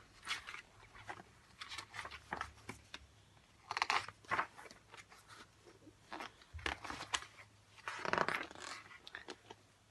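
Paper rustling and scratching with small handling clicks, a picture book being opened and its pages turned; the loudest rustles come about four seconds in and again near eight seconds.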